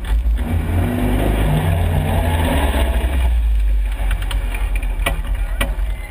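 Westfield SEi sports car's engine running heavily as the car pulls forward, heard from inside the open cockpit, then easing back to idle about four seconds in. Two sharp clicks follow near the end.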